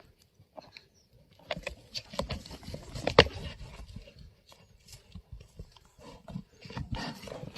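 Yak horns clashing: a string of irregular sharp knocks, the loudest about three seconds in, with another cluster near the end.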